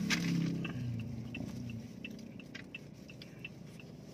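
A series of short high chirps repeating about three times a second, with a low hummed voice in the first second and a sharp click near the start.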